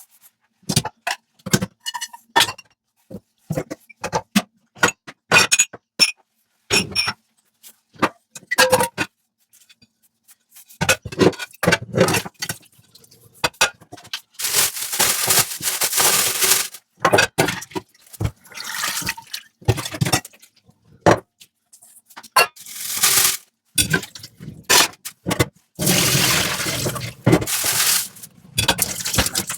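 Dishes and glassware clinking and clattering in a sink, some knocks ringing briefly, with a tap running in several bursts of a few seconds in the second half.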